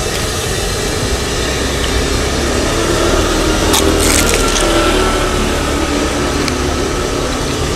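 Crunch of a bite into a crisp fried wonton, a short cluster of sharp crackles about four seconds in, over steady street-traffic noise with engines running.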